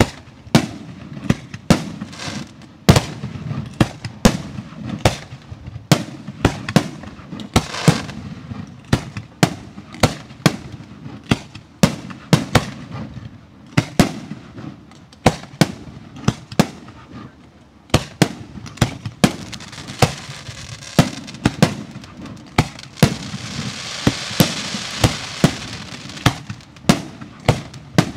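Professional 1.3G display fireworks going off in a rapid barrage: a steady run of sharp bangs, about two or three a second. A swell of hiss comes in around twenty seconds in, along with the bangs.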